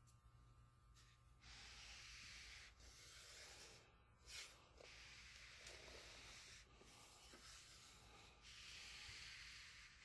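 Faint rubbing and sliding as a hand handles a wooden gage block case: about five soft scrubbing stretches, each a second or so long, with one short louder scrape about four and a half seconds in.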